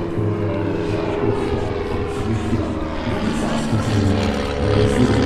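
Vintage RWD-5 light aircraft flying past, its single piston engine and propeller droning steadily, growing a little louder near the end.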